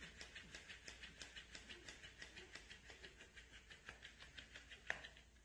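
Faint, even ticking, about five clicks a second, with one sharper click near the end.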